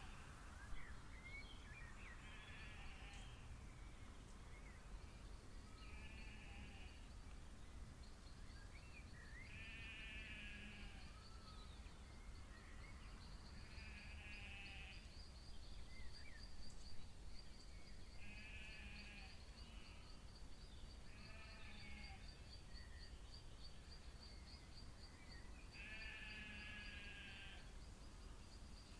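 A night bird calling over and over, each call a nasal, bleating note about a second long, repeated roughly every four seconds. A steady high pulsing trill runs beneath it from a few seconds in, over faint background noise.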